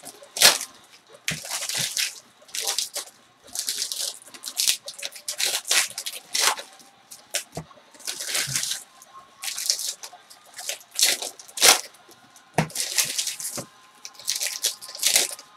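Foil trading-card pack wrappers being crinkled and torn open by hand, in irregular bursts of crackling with sharp clicks.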